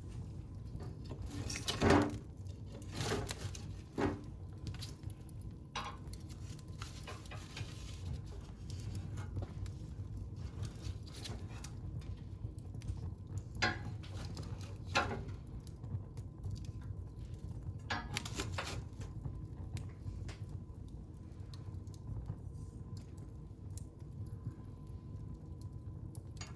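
Wood fire in a fireplace crackling, with irregular small snaps and a few louder pops, over a steady low rumble of the flames.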